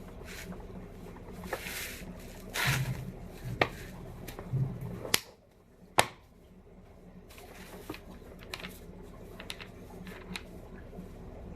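Handling noise between impact-wrench tests: scattered light clicks and knocks with a few short rustles, and one sharp click about six seconds in. The impact wrench is not running.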